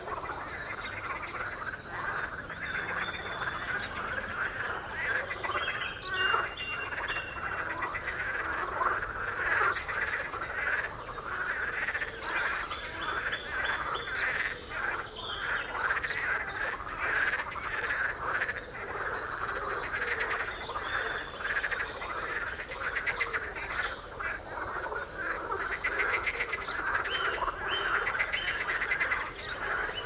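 A dense, continuous chorus of marsh frogs croaking from the water, many calls overlapping. Songbirds sing high above the chorus now and then.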